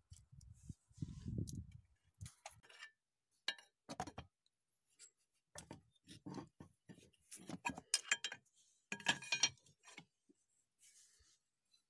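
Metal tools and engine parts being handled, clinking and clattering in irregular bursts, busiest about eight to nine and a half seconds in, with a low dull thump about a second in.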